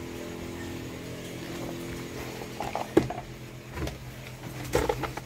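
An engine idling, a steady low hum. There is a sharp knock about three seconds in and some brief clattering near the end.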